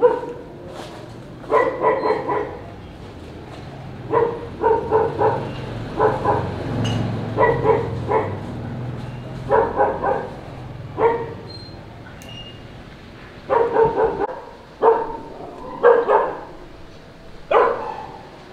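A dog barking repeatedly in short runs of barks, with pauses of a second or two between runs.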